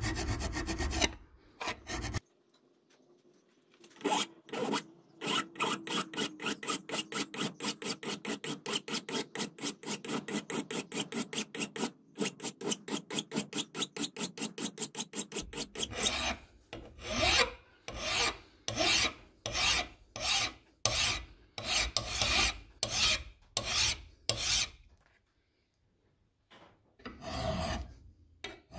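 Flat hand file rasping across the metal of an old TNC bench vice, with quick, short strokes several a second. Around 16 seconds in the strokes slow to about two a second, then stop about 25 seconds in, with one more short run of strokes near the end.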